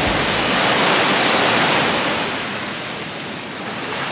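Surf breaking and washing up a sandy beach, a steady rush of water that eases off about three seconds in and builds again near the end.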